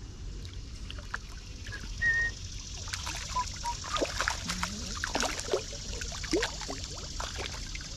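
Hooked brown trout splashing and thrashing at the surface of a shallow creek as it is played toward the landing net, with irregular splashes over the stream's steady trickle, growing busier from about three seconds in.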